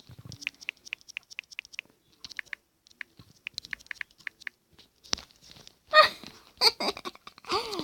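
Typing: runs of quick light clicks, about six a second, with short pauses between them as a message is typed. A few louder knocks and a brief vocal sound come near the end.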